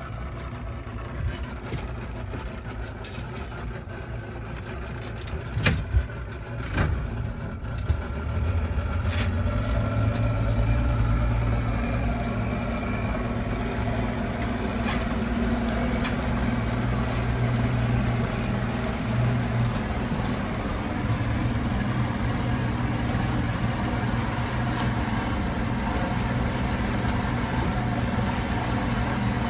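Mercury 175 hp outboard, fitted with a 200 hp ECU, idling steadily with a few knocks. About eight seconds in it comes up a little in revs as the boat gets under way slowly, then runs steadily, and sounds normal.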